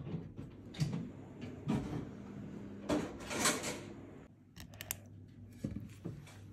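Handling noise from gloved hands holding a cat's mouth open: scattered short clicks and knocks, and a longer rustling hiss about three seconds in, over a faint steady low hum.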